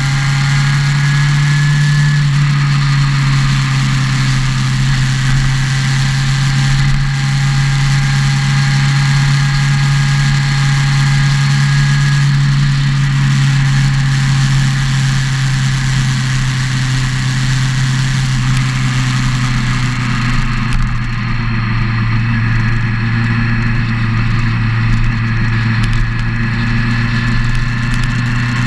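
Motorcycle engine running at a steady cruise, with wind and road noise rushing over the bike-mounted camera. The engine eases off slightly about two-thirds of the way through.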